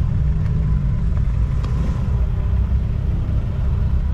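Modified Volkswagen Lupo with a twin-tip exhaust, its engine running steadily at low revs as the car crawls along, heard mostly as a low exhaust note.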